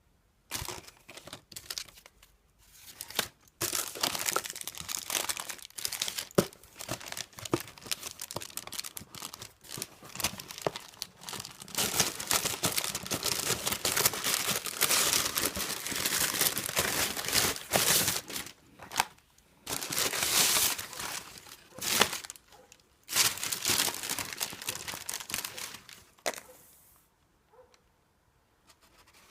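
Packing material being crumpled and torn by hand as a parcel is unpacked: dense crinkling and tearing in stretches with short pauses, stopping near the end.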